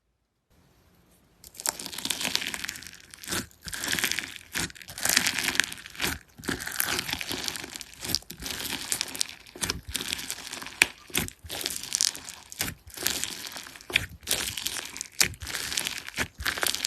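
Slime being squeezed and pressed by hand, giving a crackling, crinkling sound in repeated bursts that starts about a second and a half in.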